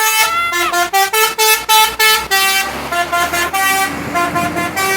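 Bus's multi-tone 'telolet' musical air horn playing a quick run of short notes at changing pitches, some notes sagging downward, over the low running of the bus engine. A short rush of noise comes in about halfway through.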